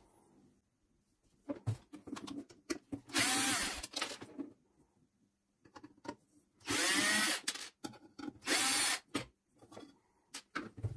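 Electric screwdriver running in three short bursts, its motor whine rising and falling, as it backs out the screws holding the LED chip board to the lamp's aluminium heat sink. Light clicks and handling knocks come between the runs.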